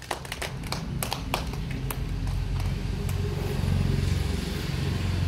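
A motor vehicle's engine running with a low steady hum, growing louder over the first few seconds, with a few scattered claps in the first two seconds.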